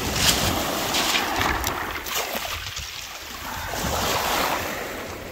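Sea waves washing onto the beach, rising and falling and loudest about four seconds in, with wind buffeting the microphone.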